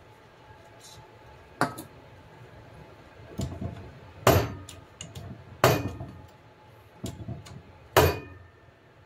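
Sharp metallic knocks and clinks, four loud ones and a couple of softer ones, each with a brief ring, from a hydraulic bottle-jack press forcing a new bushing into a suspension arm as the jack handle is pumped.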